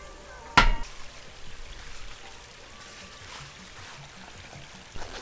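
A glass beer bottle set down on a hard surface, one sharp clack with a brief ring about half a second in, over a steady faint trickle of pool water. A smaller click comes near the end.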